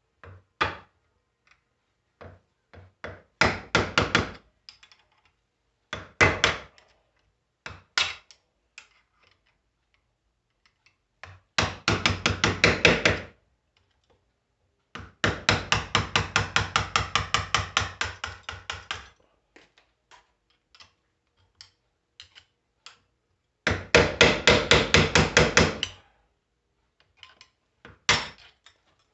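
Hammer blows knocking the worn roller bearing out of a Volkswagen Voyage starter motor, in rapid runs of about five strikes a second with single knocks between. The longest run lasts about four seconds.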